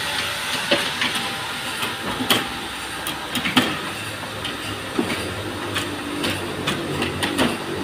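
Sawmill machinery running with a steady hum, and irregular sharp clacks and knocks throughout.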